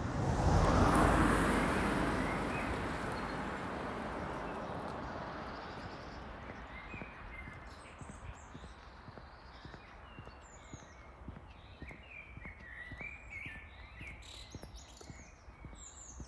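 A loud rushing noise swells about a second in and fades away over several seconds, like something passing by. Small birds then chirp and sing in quick, scattered calls over faint footsteps.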